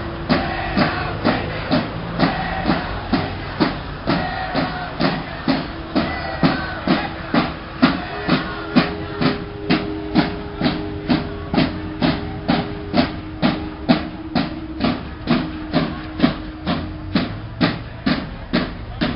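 Protest-march drums beating a steady, even rhythm of about two to three strikes a second. A held tone runs beneath the beat through the middle stretch.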